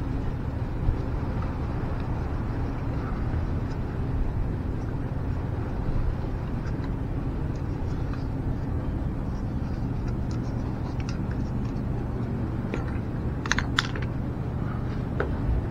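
A steady low background rumble, with a few light clicks near the end as the brass shower valve and tools are handled while Teflon tape is wrapped onto its threads.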